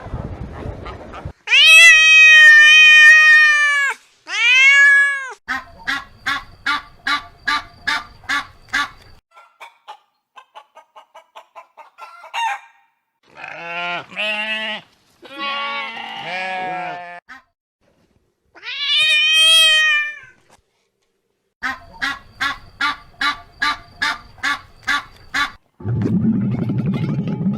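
A series of farm animal calls, mostly poultry: long, arching, pitched calls near the start and again about two-thirds of the way through, and runs of short calls repeated about three times a second, with other shorter pitched calls in between.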